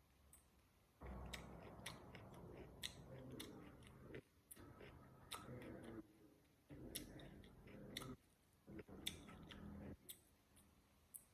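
A person chewing food close to the microphone, with sharp wet mouth clicks throughout. Four stretches of a low, muffled, hum-like sound come and go about a second in and then every second or two.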